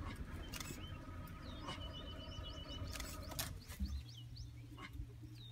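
Birds chirping in short, high, rising notes over the low steady hum of an idling vehicle engine, with a few faint clicks.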